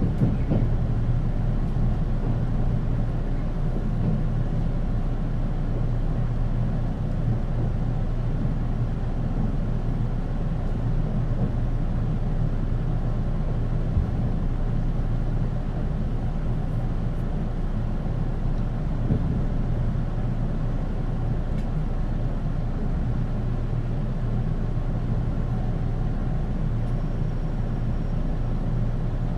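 Running sound of a 485 series electric multiple unit heard from inside its motor car: a steady low rumble of wheels and traction equipment at a constant pace, with no change in pitch.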